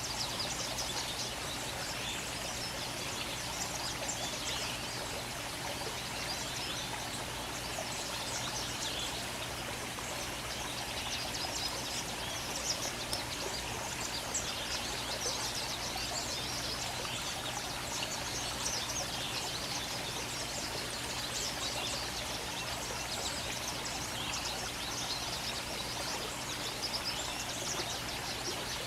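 Small birds chirping: many quick, high, short notes over a steady rushing background noise.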